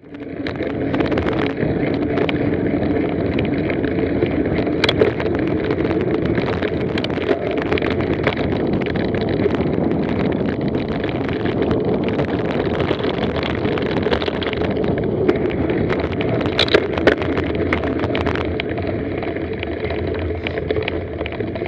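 Mountain bike being ridden along a dirt forest trail: a steady rush of wind on the microphone and tyre noise, with frequent rattling clicks and knocks from bumps, the sharpest ones about two-thirds of the way through.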